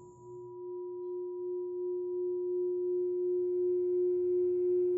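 A single steady pure tone held on one pitch, like a singing bowl or sine-wave drone in the background music, slowly growing louder with a gentle regular wavering. A fainter higher tone fades away in about the first second.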